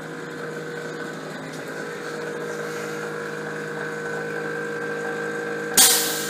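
Steady mechanical hum from a Yamaha FZ1 Fazer motorcycle fitted with Legup landing gear, growing a little louder, with one sharp clunk near the end.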